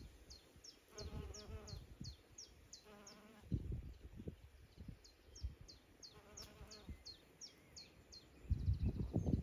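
A bee buzzing in three short passes close to the microphone, with wind rumbling on the microphone and strongest near the end.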